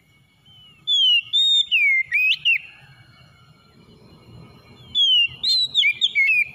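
Oriental magpie-robin singing: two bursts of loud, whistled phrases with sliding notes, about a second in and again about five seconds in.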